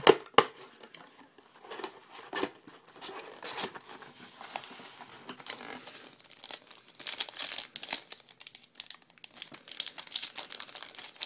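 Plastic wrapping on a pack of 2012 Panini Prestige trading cards being torn and pulled open, with irregular crinkling and crackling and a sharp snap at the start. The wrapper is hard to open.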